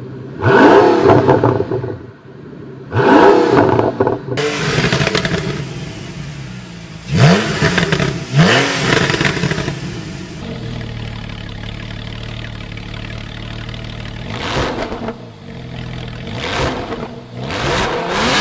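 A performance car engine blipped sharply from idle about four times, each rev rising and falling quickly, with exhaust crackles and pops as it drops back. It settles to idle, with a few smaller blips near the end.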